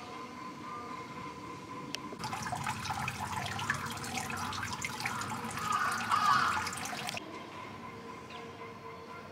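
Water pouring from a bronze dragon-head spout into the stone basin of a temple purification fountain, splashing steadily. It starts suddenly about two seconds in and cuts off about five seconds later.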